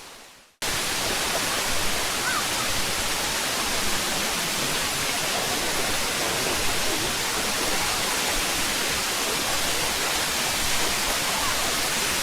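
Waterfall water pouring and splashing in a steady, even rush that cuts in abruptly about half a second in.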